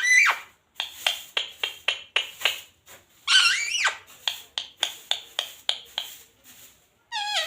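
Indian ringneck parrot calling: a quick run of short, sharp chirps, a longer warbling call about three seconds in, then more quick chirps that trail off near the end.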